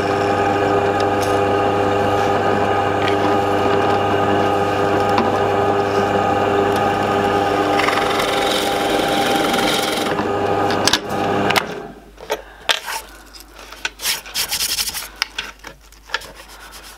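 Drill press running with a 20 mm Forstner bit boring a shallow countersink into a plywood board: a steady motor hum under rasping cutting noise, which stops suddenly about twelve seconds in. Light scattered clicks follow as a steel T-nut is handled and set into the hole.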